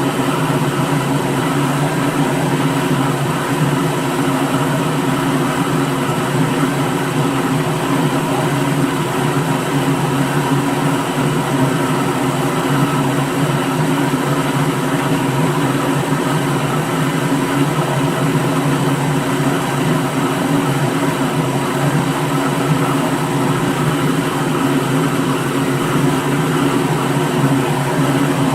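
Electric blender motor running steadily at one speed, an even, unbroken hum that does not change in pitch or loudness.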